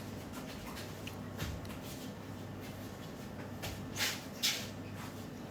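Quiet room tone with a steady low hum and a few brief rustling noises, the loudest two a little after four seconds in.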